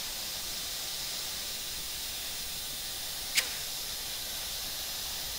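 Steady hiss inside a Blue Angels jet's cockpit during a split-S, with a single sharp click about three and a half seconds in.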